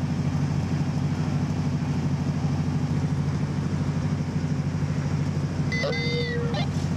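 Car engine idling steadily, a low even hum with a fast flutter.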